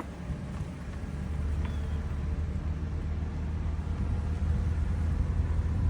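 Car cabin noise while driving: a steady low engine and road hum that grows gradually louder as the car picks up speed.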